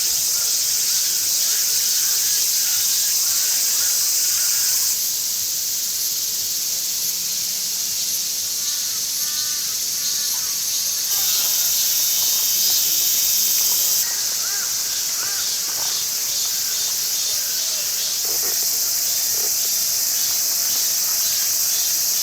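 Dense, steady chorus of autumn crickets and other insects chirping, high-pitched, with a few faint short chirps lower down. The chorus steps louder and quieter every few seconds.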